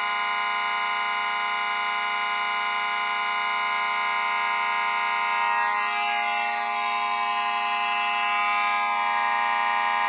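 Simplex fire alarm horns on the demo board sounding together, loud and continuous with no temporal pulsing: a steady, multi-tone alarm. The continuous signal is the panel's drill mode, which overrides the temporal coding.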